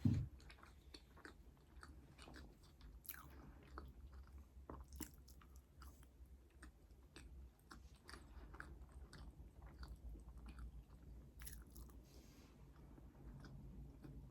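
Close-miked chewing and biting of food, with many small mouth clicks and soft crunches. A dull thump comes right at the start.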